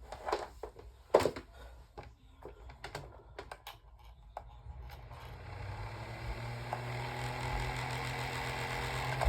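A few clicks and knocks, the loudest a sharp click about a second in. About five seconds in, a Holmes Blizzard desk fan's motor starts and spins up to a steady hum with rushing air. The owner calls it a little out of balance and rattly.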